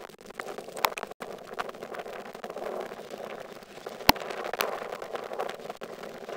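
Ford Fiesta rally car running hard on a gravel stage, a steady engine drone broken by a few sharp cracks, the loudest about four seconds in.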